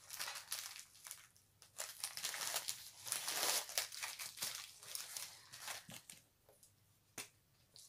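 Plastic wrapping on a rolled diamond-painting kit crinkling as it is handled, loudest about halfway through and dying down afterwards, with a single sharp tap near the end.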